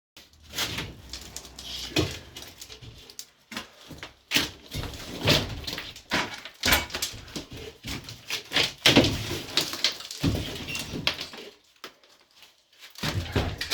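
Demolition work in a small bathroom: repeated knocks, thumps and scraping, as if something is being pried and banged off the wall, with a quieter stretch about two seconds before the end.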